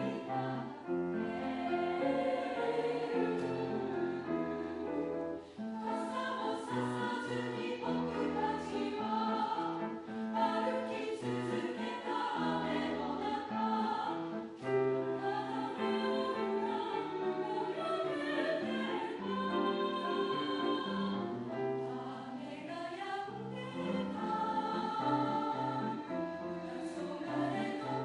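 A choir singing in harmony, with several voice parts holding and moving sustained notes together.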